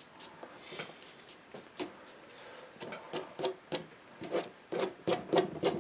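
Paintbrush strokes dabbing and scrubbing on watercolour paper, a series of short scratchy strokes that come quicker and louder from about halfway through.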